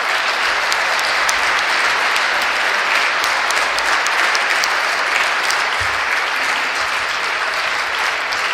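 A large audience applauding: dense, steady clapping that holds at full strength throughout.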